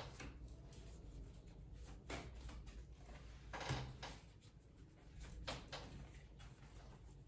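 Tarot cards being shuffled and handled by hand: a few soft, short swishes and taps spaced a second or two apart, over a faint low hum.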